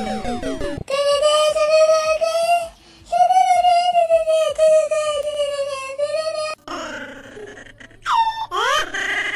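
A cat's long, drawn-out wailing meows: two held cries of a few seconds each, then a rising yowl near the end.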